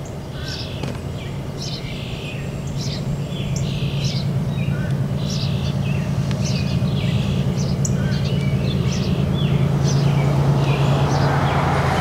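Songbirds singing short repeated chirping phrases over a low steady hum that grows gradually louder, with a rising hiss near the end.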